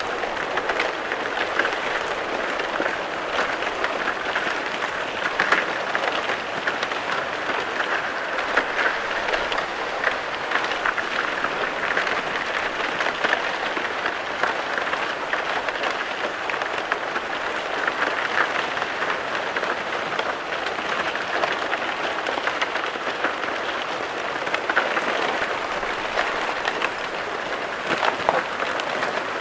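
Thin plates of fresh lake ice breaking and grinding against each other as they stack up on the shore: a dense, continuous tinkling and crackling like piles of glass shards shifting, with a few louder cracks.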